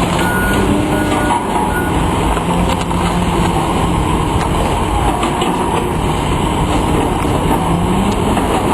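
A large vehicle engine running steadily and loud, with a continuous rumble and no let-up.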